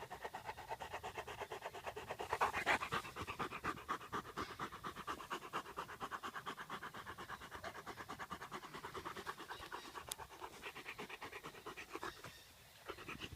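Gordon setter panting rapidly and evenly after a run, with a brief pause near the end.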